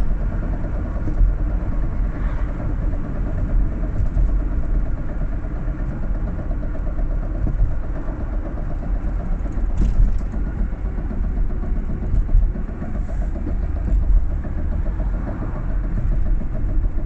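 Fiat Ducato van running with a steady low rumble and a fast, even pulsing, with a few sharper knocks over it, the clearest about ten seconds in. The knocking is the fault the recording was made to show.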